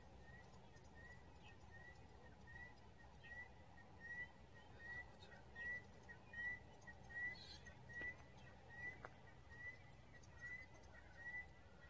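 A bird calling a short, slightly rising whistled note over and over at an even pace, a little more than once a second.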